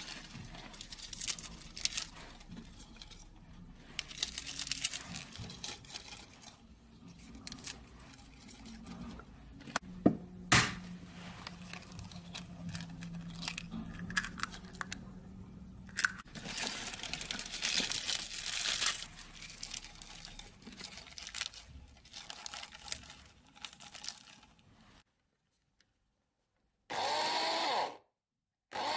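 Fresh spinach leaves being handled and packed into a plastic mini chopper bowl: rustling and crinkling, with a couple of sharp clicks about ten seconds in. Near the end the electric mini chopper's motor runs in a short pulse of about a second, then starts again.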